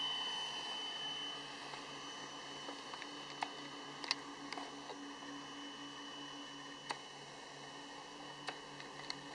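Distant whine of a radio-controlled Aermachi MB-339's electric ducted fan, fading away over the first couple of seconds. Then a faint steady hum and hiss with scattered small clicks, from the camera's own mechanism as it loses focus.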